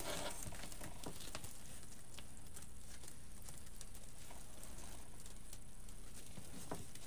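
Faint scattered crinkles and light taps of ribbon and deco mesh being handled, over a steady background hiss.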